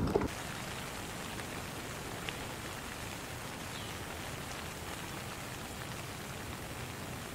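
Steady, even patter of rain with no pitch or rhythm. Chewing breaks off just as it begins.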